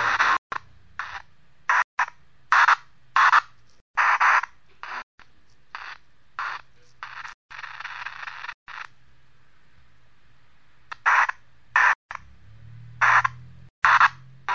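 Choppy bursts of radio static from a spirit box sweeping through stations, each burst a fraction of a second to about a second long and cut off by sharp dropouts, over a low hum. The bursts come quickly for the first several seconds, pause for a couple of seconds, then resume.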